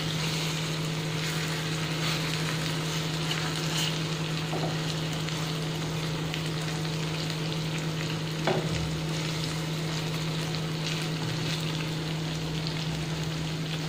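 Masala-and-cream gravy bubbling and sizzling under eggplant slices in a nonstick wok on a high gas flame, over a steady low hum. A spatula knocks lightly against the pan twice, about four and eight and a half seconds in.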